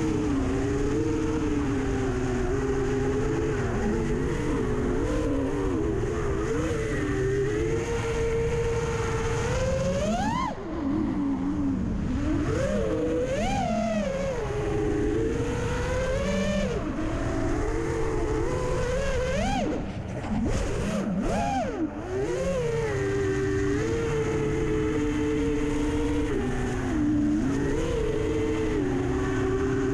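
FPV racing quadcopter's T-Motor F80 2500KV brushless motors and propellers whining steadily, with sharp rising swoops in pitch as the throttle is punched around ten seconds in, near fourteen seconds and again about twenty-one seconds in. There are brief drops in loudness where the throttle is chopped.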